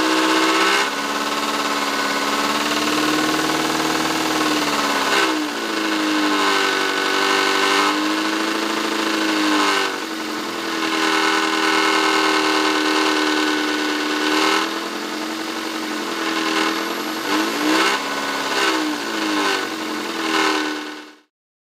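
Toyota Corolla engine running, its pitch dipping and rising several times as the throttle is worked, then stopping abruptly near the end.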